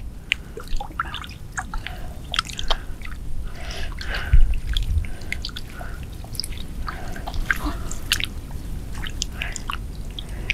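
Hands groping in shallow water and mud at the water's edge: an irregular scatter of small splashes, drips and squelches.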